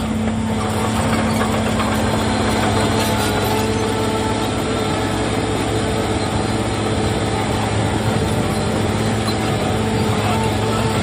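Heavy earthmoving machine's diesel engine running steadily at a constant speed, with a mechanical rumble and clatter behind it.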